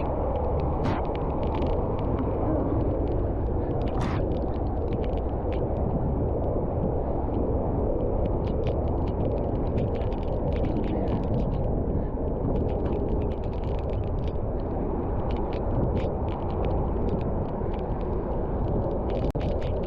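Steady wind rush on the microphone and tyre noise of a road bicycle riding at speed on a wet road, with many small ticks scattered throughout.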